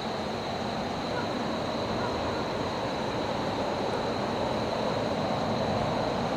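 Chuo Line train approaching: a steady rumbling noise that grows slowly louder.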